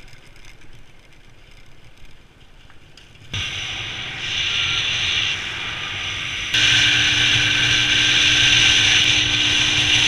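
Motorbike running at road speed, its engine under a steady rush of wind noise. The sound jumps abruptly louder about three seconds in and again about six and a half seconds in.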